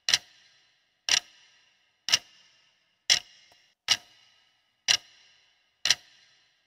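Clock-tick sound effect of a quiz countdown timer: one short, sharp tick each second, seven in all.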